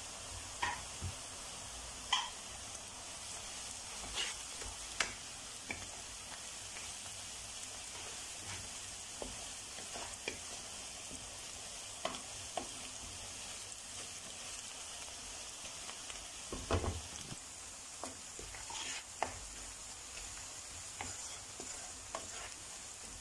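Onion, garlic and spices frying in oil in a non-stick kadhai, a steady sizzle, with scattered clicks and taps of a spoon against the pan as the masala is stirred.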